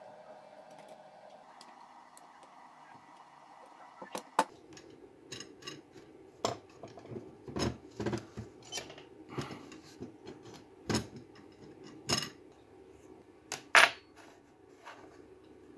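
Small steel parts being handled: irregular clicks and clinks of a zinc-plated bolt, screw and collar, with a few sharper knocks as metal pieces are set down. The loudest knock comes near the end. A faint steady tone fills the first few seconds.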